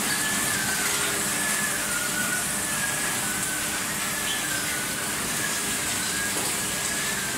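Polycarbonate sheet extrusion line running: a steady mechanical hiss and hum of machinery, with a high whine that wavers gently up and down in pitch.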